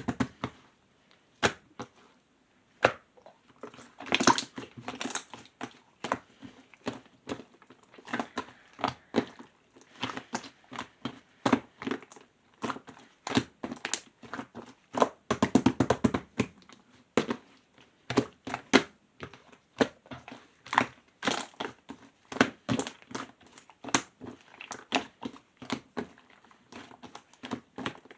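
Clear slime being squished and worked by hand, making dense, irregular sharp clicks and crackles.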